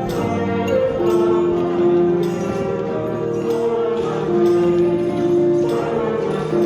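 Hymn accompaniment with long held notes, with hand percussion such as tambourines and jingle bells shaken along on a steady beat.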